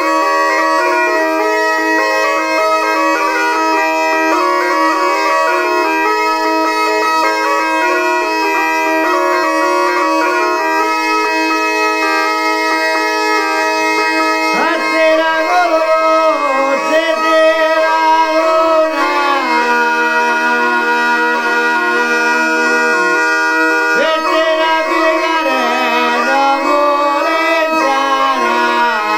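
Sicilian zampogna (ciaramedda) playing a folk tune: steady drones under a stepping chanter melody. About halfway through, a man's voice begins singing over it with a wavering vibrato.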